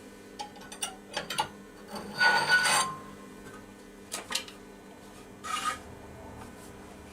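Metal tools being handled on a car body panel: a run of short clicks and knocks, a longer scrape with a metallic ring, then more clicks and a brief scrape, over a steady low hum.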